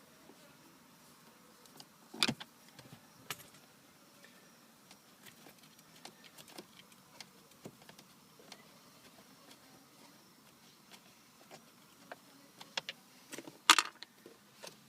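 Scattered small clicks and knocks of hand work on plastic dashboard trim as screws are taken out. There is a sharp knock about two seconds in and a cluster of louder clicks near the end.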